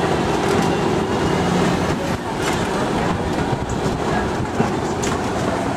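Open-air safari truck driving over a bumpy dirt track: a steady rumble with scattered rattles and knocks as the vehicle jolts along.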